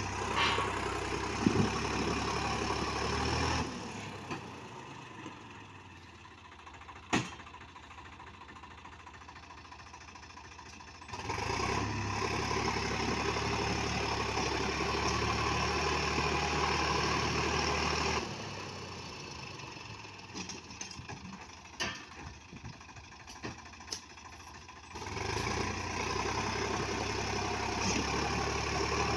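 Sonalika DI 42 RX tractor's diesel engine revving hard in three long pushes, idling between them, as the tractor strains to drag its loaded trolley out of a rut it is stuck in. A few sharp clicks sound during the idle stretches.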